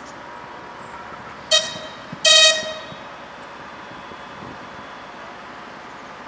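Train horn giving two toots, a short one and then a louder, longer one, as a driver's greeting.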